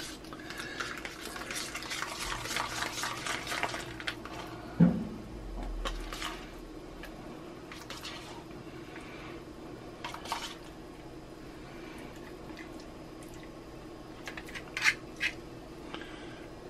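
Metal spoon scooping ricotta from a plastic tub and dabbing it onto lasagna noodles in a roasting pan: a few seconds of scraping and rustling at the start, one sharp knock about five seconds in, then scattered clicks and scrapes. A steady low hum runs underneath.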